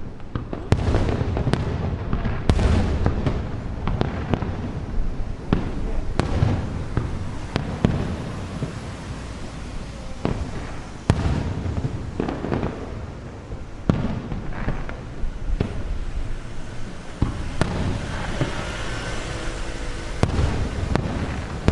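Aerial fireworks display: a steady series of shell bursts going off one after another, each boom ringing out and echoing off the hills behind the viewing spot, with a denser run of noise near the end.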